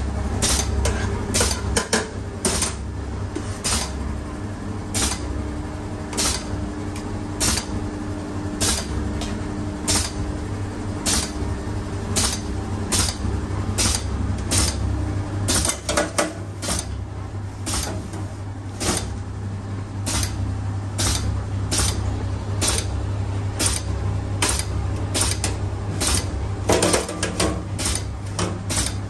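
Samosa-forming machine running: a steady low motor hum with a sharp mechanical clack about every second and a quarter as it presses out each filled samosa pocket.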